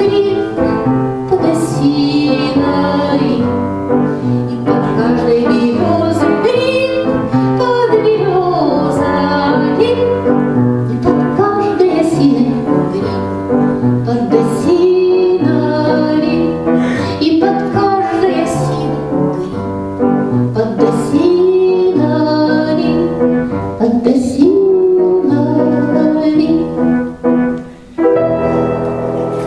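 A woman singing a slow song with piano accompaniment, the voice gliding over held chords. The music dips briefly near the end before a final phrase.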